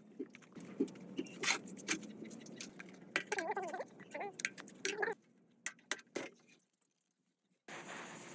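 Light clicks and knocks of small parts and tools being handled, with a few short wavering squeaks in the middle. The sound stops for about a second near the end, then a steady hiss with a faint hum begins.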